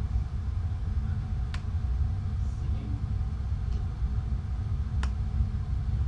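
Steady low rumble, with two sharp small clicks, one about a second and a half in and one about five seconds in, from a small tool working the hardened epoxy off a fishing rod guide.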